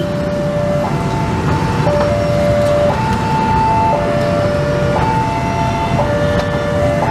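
Railway level-crossing warning alarm sounding a two-tone hi-lo signal that switches pitch about once a second, warning of an approaching train, over the steady din of a busy market crowd.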